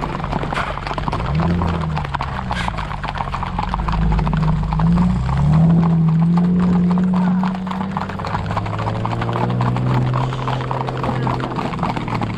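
Hooves of a group of horses clip-clopping in a fast, dense patter, with a loud low droning tone underneath that rises and dips.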